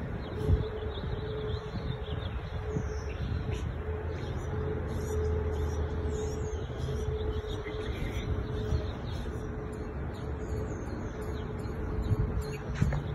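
Outdoor street ambience: a steady low rumble of traffic that swells a little midway, with small birds chirping over it and a steady hum underneath.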